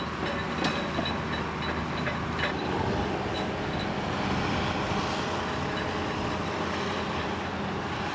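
An engine running steadily, with a few light knocks and rattles in the first couple of seconds.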